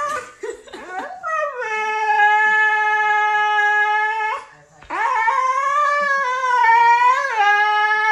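Siberian husky howling: a few short whiny yelps, then two long howls, the first gliding down and held at a steady pitch, the second wavering up and down.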